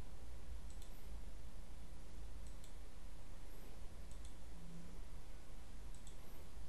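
Computer mouse clicking a few times, one click every second or two, over a steady low hum of background noise.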